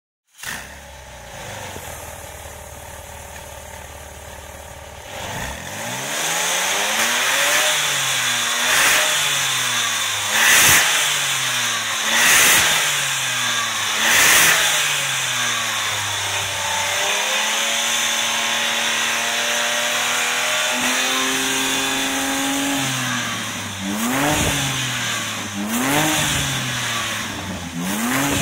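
Porsche 997 Turbo's twin-turbocharged flat-six running through a DesignTek valved sport exhaust, idling at first and then revved over and over from standstill. Revs rise and fall repeatedly, are held steady for several seconds in the middle, and end in short quick blips.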